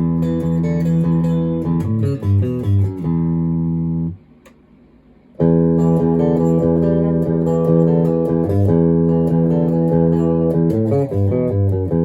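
Maverick Chaos 2 HT electric guitar played through a Brown Creature distortion pedal: sustained chords over shifting low notes. It is muted abruptly just after four seconds in and starts again about a second later.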